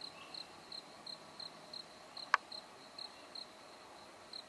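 An insect chirping steadily outdoors, short high chirps about three a second. About halfway through there is one sharp click, louder than the chirping.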